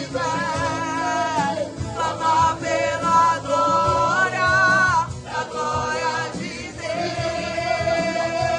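Gospel worship song: several voices singing together over instrumental accompaniment, ending on a long held note.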